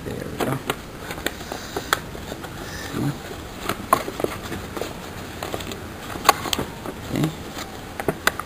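A sheet of paper crackling and rustling as it is folded and creased by hand, in an irregular string of sharp, crisp clicks.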